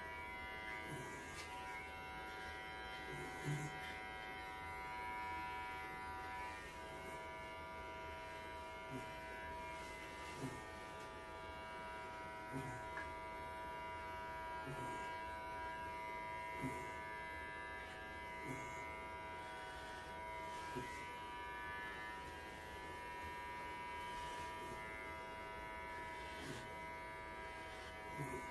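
Electric pet hair clippers running with a steady buzzing hum as they shave a Welsh Corgi's coat down close, with short soft knocks every couple of seconds.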